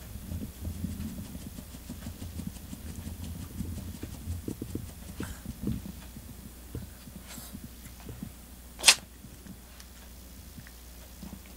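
A single short, sharp sneeze about nine seconds in, the loudest sound here, after soft low thumps and rustling.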